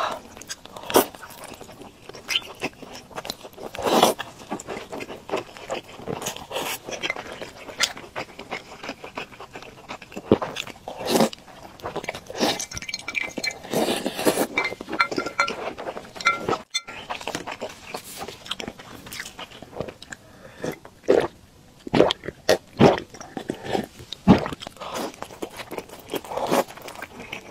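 Close-miked eating of youtiao (Chinese fried dough sticks) soaked in brown-sugar soy milk: wet biting, chewing and sipping in irregular bursts.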